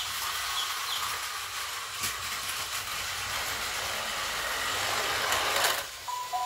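Battery-powered Plarail toy train running on plastic track: a steady, high whirring hiss with a few light clicks. It cuts off about six seconds in, and a few steady electronic tones begin.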